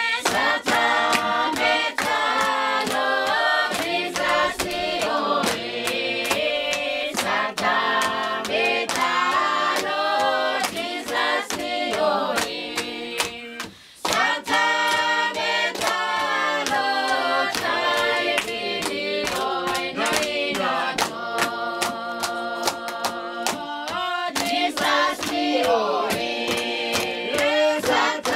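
A congregation singing a hymn together, many voices in chorus with women's voices prominent, crossed by frequent sharp clicks. The singing briefly breaks off about fourteen seconds in.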